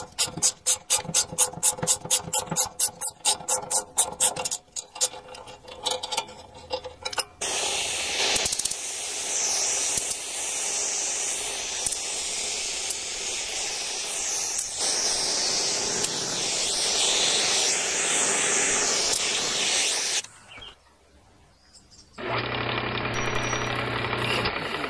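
Rapid even clicking, about five a second, as the screw of a gear puller is turned on a rusty lawnmower shaft. Then a long steady hiss of compressed air from a powder-coating spray gun, and near the end a brief electronic logo sting with a low hum.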